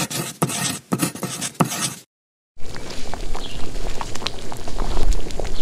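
A scratchy pen-writing sound effect for about two seconds, then a brief silence. After that comes a pot of motor dal (split-pea dal) boiling hard, its bubbles popping in quick irregular plops over a low rumble.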